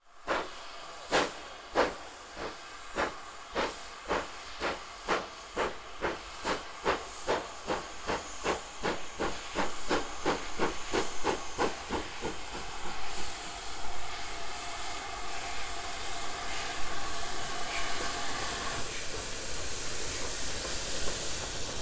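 GWR steam locomotive No. 2999 'Lady of Legend' working a freight train past: sharp chimney exhaust beats with a hiss of steam, the beats quickening as it draws near. After about twelve seconds the beats give way to a steady hiss and the rumble of the tender and goods wagons rolling by.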